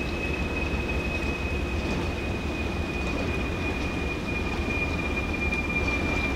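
Freight train hauled by an ALCO RS-1 diesel locomotive running: a steady low rumble with a single high-pitched whine held throughout, sinking very slightly in pitch.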